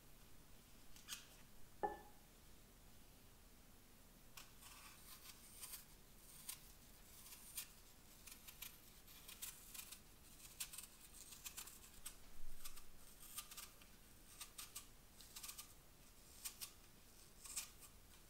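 Paring knife peeling a red apple: a run of faint, short, crisp cutting scrapes as the blade shaves the skin off in a spiral. A single short knock comes about two seconds in.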